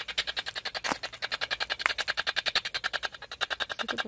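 Spirit box (radio-sweep ghost box) scanning through radio frequencies: fast, even choppy static bursts, roughly ten a second, with a few sharper clicks.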